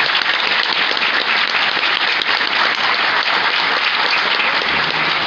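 Audience applauding: a dense, steady clatter of many hands clapping. A low held note comes in faintly near the end.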